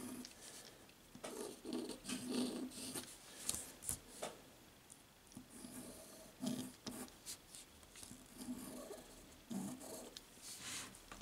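Calligraphy fountain pen's metal nib scratching across paper in short, irregular strokes as letters are written.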